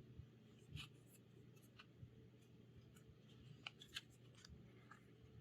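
Near silence, broken by a few faint clicks and rustles of paper trading cards being handled and shuffled through the hands.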